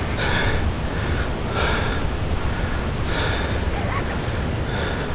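Wind buffeting the microphone in a steady low rumble, with a soft hiss that comes and goes about every second and a half.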